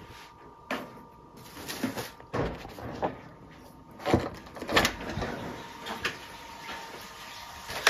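A door being opened by its round metal doorknob: a string of sharp clicks and knocks from the knob and latch, loudest about four seconds in, as the door is worked open.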